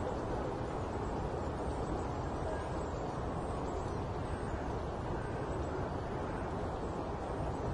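Steady hum of distant road traffic in a suburb, an even low rumble with no distinct passing vehicles.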